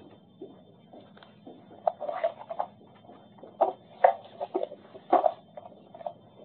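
Quiet room hum broken by scattered small knocks, rustles and brief faint murmurs, the sounds of people shifting and handling things during a lull in a meeting.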